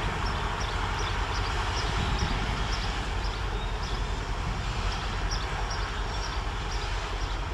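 Diesel work train running in the distance as it pulls away: a steady low rumble with a hiss that slowly fades.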